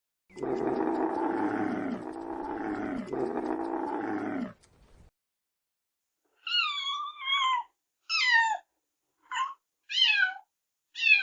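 A long, low, drawn-out animal call in three swells lasting about four seconds. After a short pause comes a cat meowing again and again: six short, high calls, each falling in pitch.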